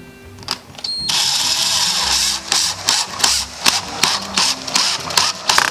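Cordless power driver driving a screw into a metal door-latch strike plate on a wooden door frame, without a pilot hole. It runs steadily for about a second, then stops and starts in a string of short bursts as the screw goes home.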